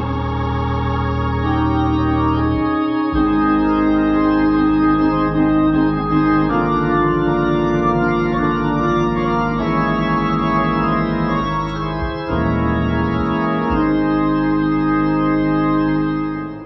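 Hammond organ playing sustained chords over deep bass notes, with the bass changing a few times. The music fades out at the very end.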